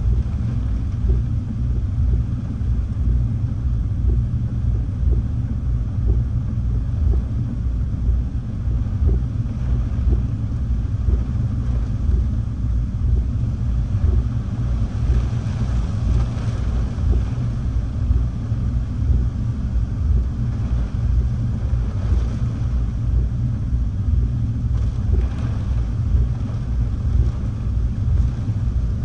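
Hurricane-force wind buffeting the microphone: a loud, low rumble that keeps swelling and easing with the gusts. A fainter rushing hiss of wind rises briefly around the middle and again near the end.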